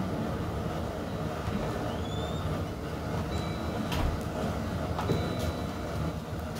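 Single-burner gas stove running under a stainless steel steamer pot: a steady low rush of burner flame, with a couple of light clicks about four and five seconds in.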